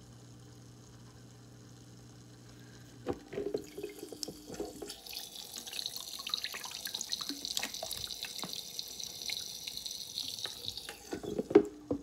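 Water splashing and trickling in a small tabletop water fountain, for about six seconds from the middle of the stretch, with scattered knocks and clicks around it. A low steady hum is heard for the first three seconds.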